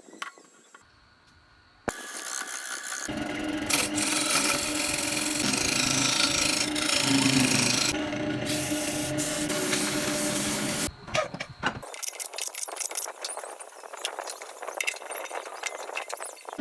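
Wood lathe running while a turning tool cuts into a spinning wooden disc: a steady motor hum under a rough scraping of the cut. It starts abruptly about two seconds in, and in the last few seconds it turns thinner, a rapid run of scratchy scrapes.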